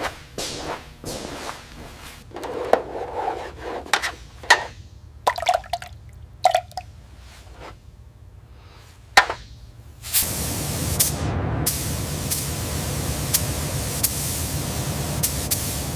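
Scattered clicks and knocks of handling, then about ten seconds in a spray gun starts a steady hiss of primer spraying, with a few faint clicks over it.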